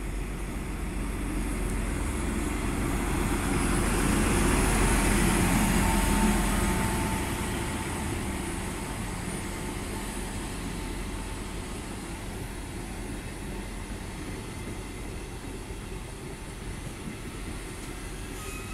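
FS D445 diesel locomotive running past at the head of a regional train, loudest about five seconds in, followed by the steady sound of passenger coaches rolling by on the rails.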